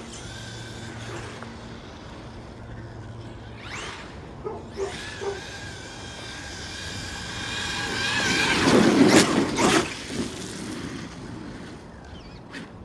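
Traxxas X-Maxx 8S electric RC truck driving in snow: the brushless motor whine rises and falls with the throttle. It grows loudest and roughest between about eight and ten seconds in.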